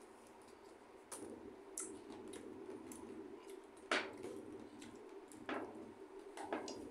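Quiet eating sounds: scattered light clicks and taps as food is picked by hand from foam plates, with one sharper click about four seconds in.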